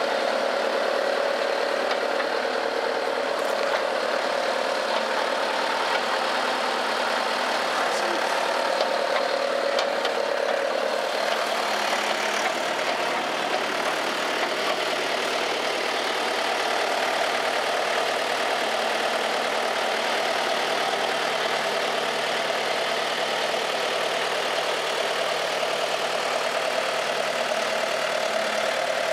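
Motor-vehicle engine idling steadily, its tone shifting slightly about eleven seconds in.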